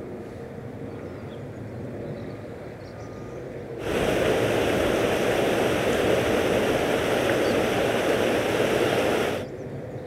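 Canal water rushing through the gap where a temporary dam has just been removed, flowing back into the drained basin: a loud steady rush that starts suddenly about four seconds in and stops suddenly near the end. Before it, a quieter steady background noise with a faint hum.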